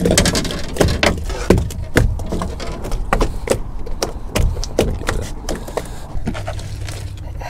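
Freshly landed jack crevalle flopping on a boat's deck: irregular thumps and slaps of its body and tail against the deck, about two a second.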